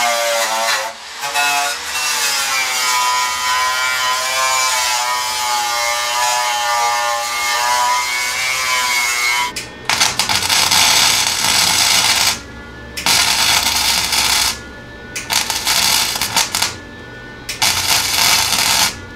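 A handheld electric power tool runs on the Jeep's bodywork, its whine wavering in pitch. About ten seconds in it gives way to an electric welder laying stitch welds on sheet-metal rocker supports: four hissing bursts of a second or two each, with short pauses between them.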